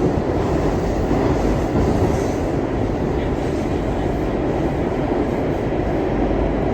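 New York City subway R62 car on the 3 line running along the track, a steady low rumble of wheels on rail with no pauses or stops.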